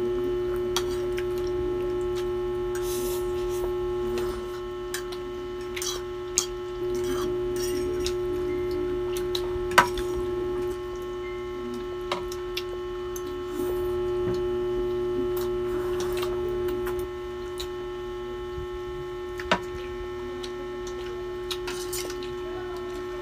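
A steady electrical hum, stepping louder and softer every few seconds, with scattered sharp clinks of forks and spoons against ceramic plates.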